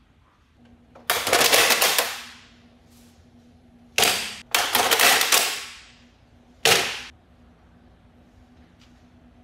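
Bora Speedhorse XT metal sawhorse being handled at its quick-release, its folding legs swinging and snapping into place with loud metallic clatters. The first is a long one about a second in, then comes a sharp clack and a longer rattle around four to five and a half seconds, and a last short clack near seven seconds.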